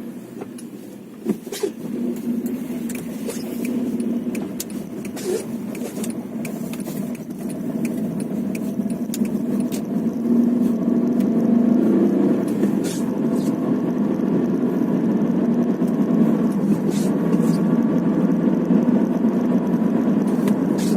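A car driving, with a steady rumble of engine and road noise that grows louder over the first ten seconds and then holds. Short sharp knocks come irregularly on top of it, most often in the first several seconds: the knock heard while the car is moving.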